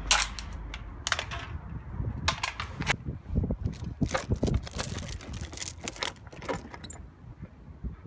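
Heavy metal chains of a playground swing clinking and rattling, in a run of sharp, irregular clinks that fades out near the end.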